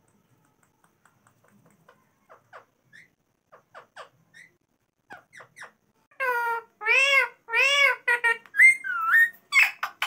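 Indian ringneck parrot calling: a few soft clicks and chirps, then from about six seconds in four loud calls that rise and fall in pitch, a gliding whistled call and a quick run of short calls near the end.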